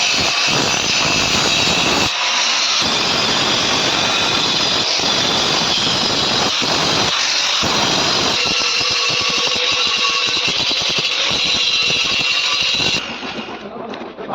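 Angle grinder grinding down the weld seams on a metal cable tray bend: a steady, loud, high grinding whine that stops near the end.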